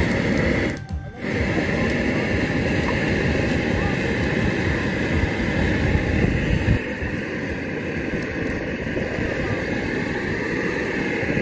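LPG gas torch burning with a loud, steady roar as it is played over a pig carcass to singe it. The roar dips briefly about a second in.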